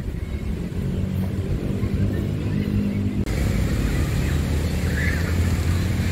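Steady low rumble of city traffic. It grows a little brighter and louder about three seconds in.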